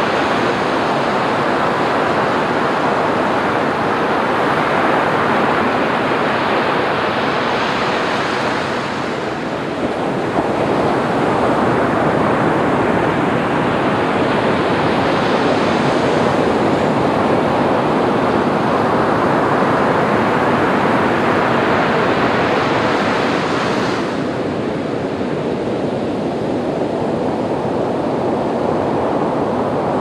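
Ocean waves washing onto a sandy beach: a continuous rushing surf that swells and eases every few seconds. It dips briefly about a third of the way in, and the higher hiss drops away suddenly near the three-quarter mark.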